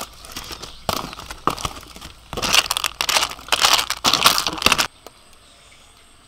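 Aluminium foil crinkling and clam shells rattling as a wooden spatula stirs clams in a foil packet on a grill, in irregular scraping bursts that stop suddenly about five seconds in.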